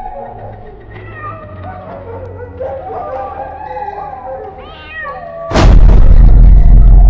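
Eerie cat-like meowing and yowling over a low drone. About five and a half seconds in, a sudden, very loud blast sound effect takes over and runs on.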